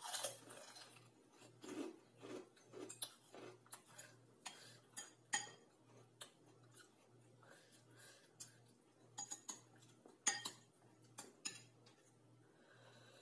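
Metal spoon and fork clinking and scraping against a ceramic bowl, in irregular short clicks.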